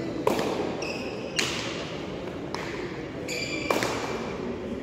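Hard frontón ball (pelota dura) struck by hand and rebounding off the wall and floor: four sharp cracks about a second apart, with two short high sneaker squeaks on the court floor between them, over a steady crowd murmur.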